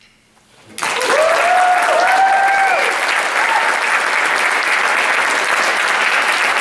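After a brief hush, an audience breaks into applause about a second in, with cheering and a few whoops over the clapping.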